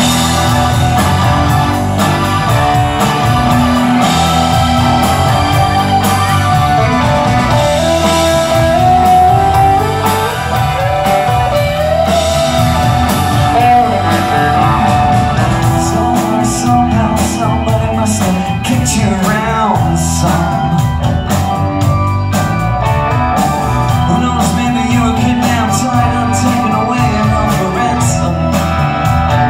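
Live rock band playing loudly: electric guitars, keyboard, bass and drums, with a lead line bending and sliding in pitch through the middle.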